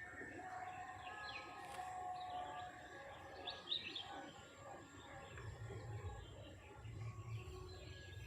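Several birds chirping and calling, with short whistled notes, over a steady thin high tone. A low rumble comes in about halfway through.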